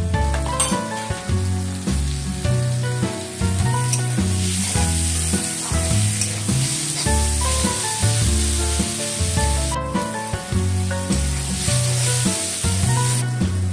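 Chopped onion, peas and tomato sizzling as they fry in oil in a metal kadai, stirred with a metal spatula. Background music with a steady bass line plays along.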